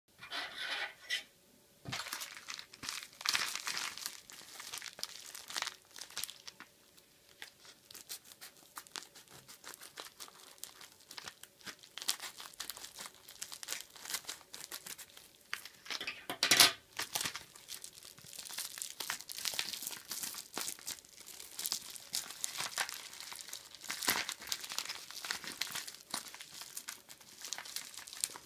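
Silver metallic plastic mailer bag crinkling and crackling as it is handled and torn open by hand, with the loudest rustle about halfway through.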